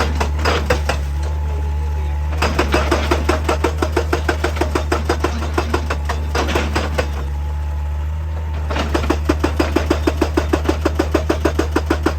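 Heavy rock-working machine's diesel engine running steadily under rapid, regular percussive hammering, about three blows a second. The hammering starts about two and a half seconds in, pauses briefly near seven seconds and resumes near nine.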